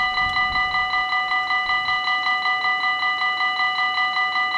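Dutch level crossing's electronic warning bell ringing in rapid, even strokes of about five a second, a bright metallic ring. It sounds while the barriers are down and the red lights show, warning that the crossing is closed for an approaching train.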